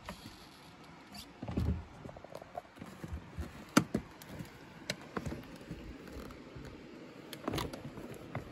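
Scattered light knocks and clicks of someone stepping down a motorhome's entry steps while handling the door and phone. A low thump comes about a second and a half in and a sharp click about four seconds in.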